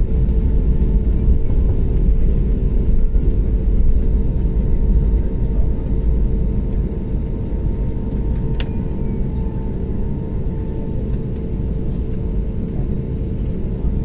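Airliner cabin noise on the ground: a steady low rumble of the running jet engines heard from inside the cabin, with a steady hum over it. A single sharp click about eight and a half seconds in.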